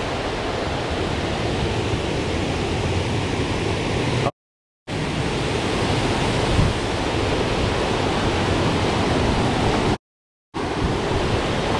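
Water pouring over a low dam spillway, a steady rushing noise, cut off twice by brief dead-silent gaps.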